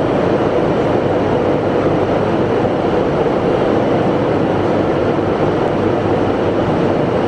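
Steady rushing noise inside an airliner cabin in flight, even and unbroken.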